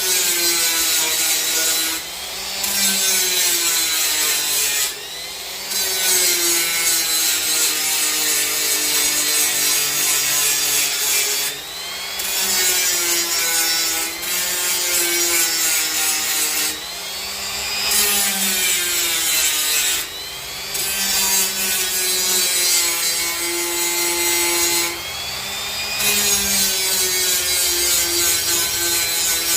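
Cordless Milwaukee M12 die grinder cutting into black walnut wood, a continuous high grinding whose motor pitch sags and recovers as it bites. The grinding eases briefly several times as the bit lifts off the wood.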